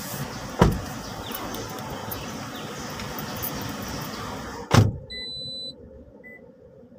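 Car doors slamming shut on a parked taxi, two heavy thuds about half a second and nearly five seconds in, over outside traffic noise. After the second slam the outside noise drops away to the quieter closed cabin, where a few short high beeps sound.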